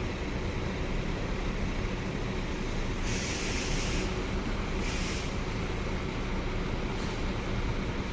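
Large coach's diesel engine running steadily at idle, with two short bursts of compressed-air hiss, a longer one about three seconds in and a shorter one about a second later.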